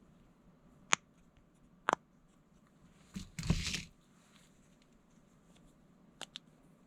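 Small fidget toys and their packaging being handled: two sharp clicks, about a second in and again a second later, then a brief rustle a little past three seconds.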